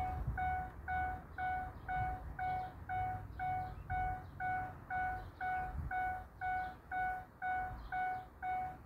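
An electronic beeper sounding a single mid-pitched tone, repeating evenly about twice a second, with a low rumble underneath.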